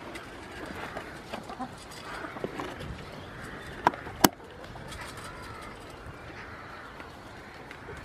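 Hens and goats feeding in straw: faint clucking and bird calls, broken by two sharp knocks close together about four seconds in.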